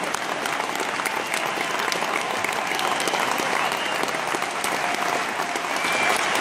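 A large arena audience applauding steadily, with a few brief high calls or whistles rising from the crowd.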